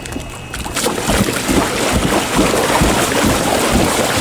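Steady rushing noise of choppy water sloshing in an above-ground pool, with uneven low buffeting of wind on the microphone. It swells in about a second in.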